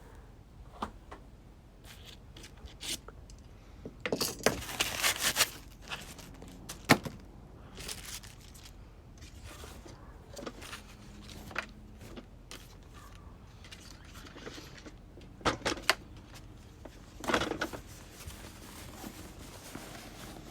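Handling noises from a portable steam iron and its plastic parts: scattered clicks and knocks, with longer rattling, rustling patches about four seconds in and again near the end.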